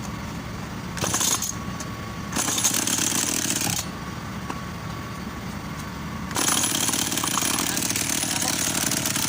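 Komatsu G621 two-stroke chainsaw being started: two short bursts of running between about one and four seconds in, then it catches about six seconds in and keeps running.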